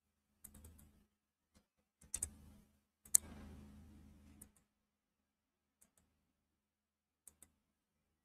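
Computer keyboard typing and clicks, sparse and irregular, with the loudest click about three seconds in followed by about a second of faint noise.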